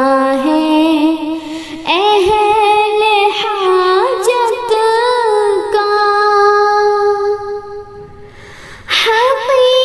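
A woman singing an Urdu hamd, a devotional hymn praising God, in long held notes that bend and ornament the melody. Around eight seconds in the voice fades to a quiet tail, and a new phrase begins near the end.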